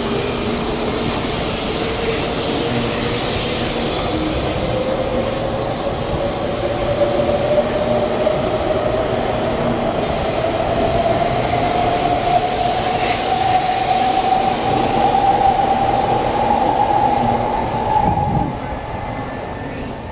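Taiwan High Speed Rail 700T trainset pulling away along the platform as it accelerates, with a motor whine that climbs steadily in pitch over the running noise of the cars. About eighteen seconds in, the whine and the loudness drop away sharply as the train leaves.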